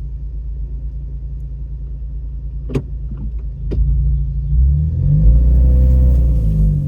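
Off-road truck's engine running low and steady while crawling a rough trail. About three seconds in come two sharp knocks a second apart. The engine then revs up under load for a few seconds and eases back near the end.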